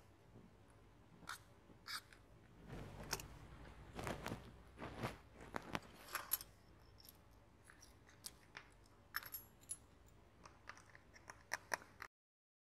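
Faint clicks, taps and handling noise of tweezers and an iPhone XR's display and frame being worked by hand, with a cluster of louder handling sounds a few seconds in. The sound cuts off completely about twelve seconds in.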